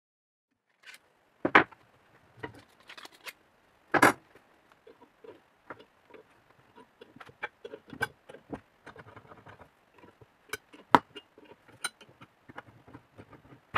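Bar clamps being adjusted and tightened on a glued-up wooden board: a few sharp knocks, the loudest about a second and a half, four and eleven seconds in, with small clicks and ticks of the clamp screws and jaws between.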